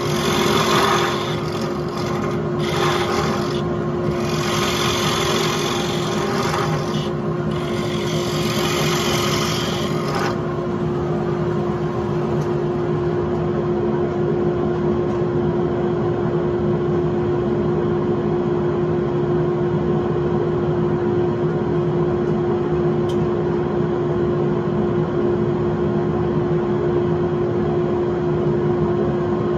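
Wood lathe motor running with a steady hum. For about the first ten seconds a turning tool cuts into the spinning wood in several rasping passes; after that the lathe runs on alone.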